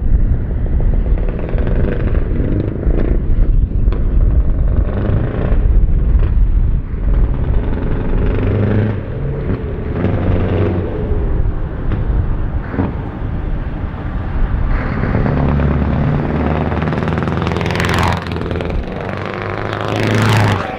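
Scania 4-series truck engines revving hard under acceleration as the trucks drive up and past, loud throughout. Near the end a sweep rises in pitch as a truck passes close and a second truck follows.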